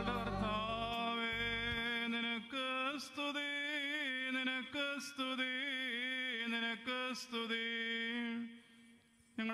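A man chanting a solo liturgical melody into a microphone, one voice with a wavering, ornamented line in the Syriac Orthodox Qurbana style. A low steady drone sounds under the first two seconds, and the chant breaks off briefly near the end.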